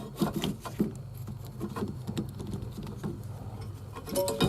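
Irregular plastic clicks, snaps and rattles as the steering-column combination switch is pried off its tabs and worked loose by hand.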